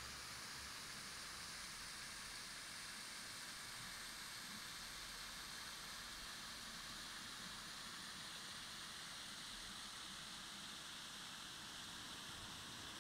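Faint steady hiss with no distinct sounds in it: the background noise of the recording itself.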